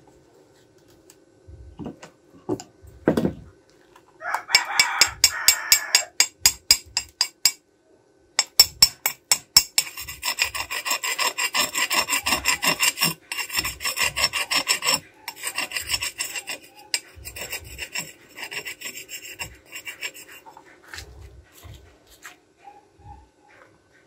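Stick-welding arc on a steel pipe: rapid stuttering crackles, about four a second, as the electrode is struck to start the arc, then a steady sizzling crackle for about five seconds that cuts off sharply, followed by weaker sputtering.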